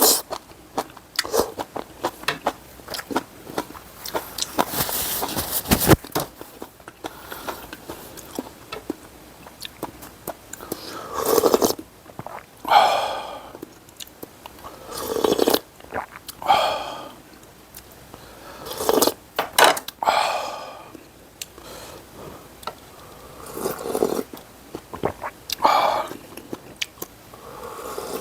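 Close-miked eating of spicy seafood noodle soup: chewing and small clicks, then several loud slurps of noodles every couple of seconds in the second half.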